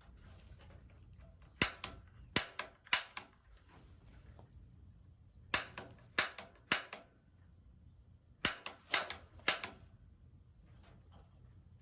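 Piezo igniter button on an AO Smith GCG-50 gas water heater's pilot being pressed repeatedly: nine sharp clicks in three quick groups of three. The igniter is not sparking at the pilot, as the plumber finds.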